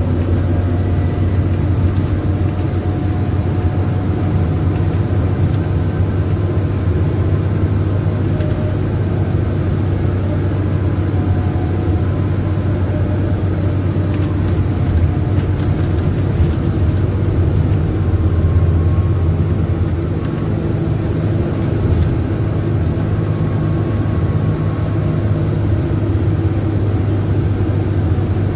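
Scania CityWide LF CNG city bus driving at a steady speed, heard from inside the cabin: a constant low engine drone with road noise underneath.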